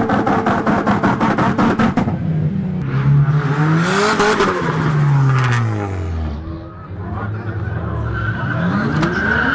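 A car engine revving hard with tires squealing as the car spins on pavement. The engine holds at high revs for about two seconds, then its pitch climbs, falls away low, and climbs again near the end.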